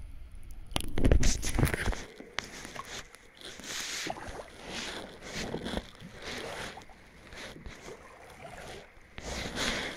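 Kayak paddle strokes: the blades dip and pull through the lake water, with a splash and drip every second or so. Loud low thumps come in the first two seconds.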